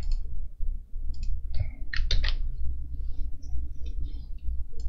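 Scattered clicks of a computer keyboard and mouse, a dozen or so irregularly spaced keystrokes and clicks, over a low steady hum.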